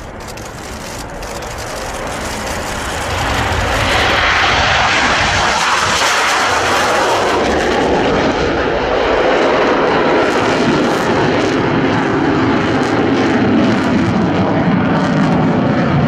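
MiG-29's twin RD-33 afterburning turbofans at full afterburner during a takeoff and steep climb. The jet noise grows louder over the first three to four seconds, then holds loud, settling lower in pitch toward the end as the fighter climbs away.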